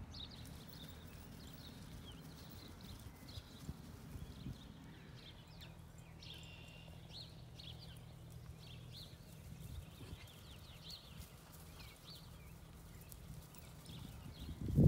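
Faint, muffled hoofbeats of a mare and her foal trotting on grass.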